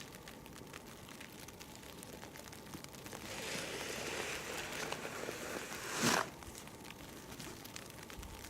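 Snow shovel pushing through heavy wet snow for about three seconds, ending in a short louder scrape about six seconds in, over faint scattered ticks of wet snow falling.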